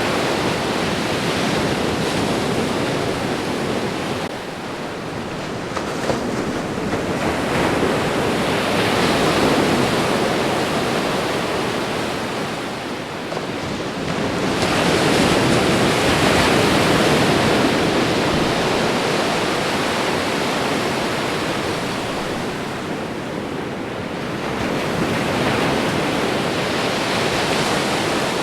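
Ocean waves washing onto the shore, a steady hiss of surf that swells and eases, with a louder wash roughly every eight to ten seconds.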